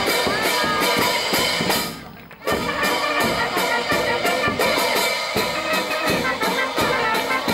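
Brass band music with drums. The music fades out near two seconds in and comes back abruptly about half a second later.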